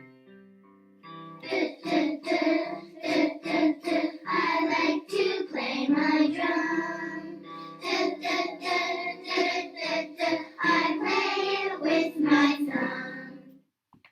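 Recorded children's phonics song for the d sound: a short keyboard intro, then children singing in short phrases over backing music, stopping shortly before the end.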